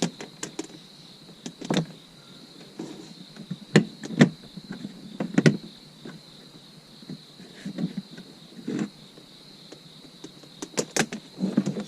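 Irregular clicks and knocks of plastic interior trim and cable being handled as a wire is pushed in behind the trim panels, several of them sharp and loud.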